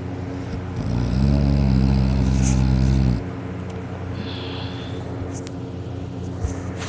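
A person snoring loudly in deep sleep: one long, low-pitched snore lasting about two seconds, starting about a second in, followed by a quieter stretch.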